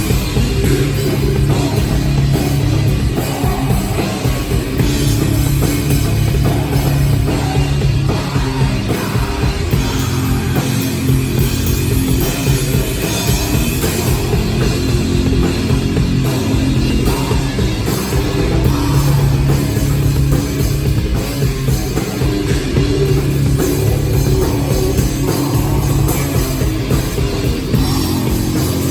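Rock band playing live, loud and dense, with a full drum kit and guitars.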